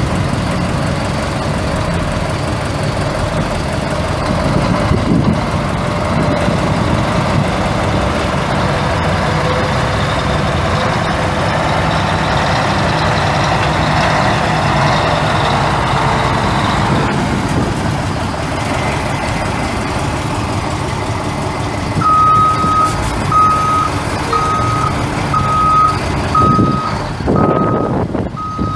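Mack ENDT676 six-cylinder turbo diesel of a 1978 Mack RD686S dump truck running, its pitch drifting up and down. About three quarters of the way through, a backup alarm starts beeping at a steady one beep every 0.7 seconds or so as the truck reverses.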